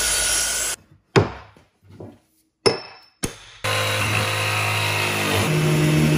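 A miter saw runs for about a second, then four sharp knocks sound on wood. From a bit after three seconds in, a jigsaw cuts plywood steadily, giving way near the end to the steady hum of a random orbit sander.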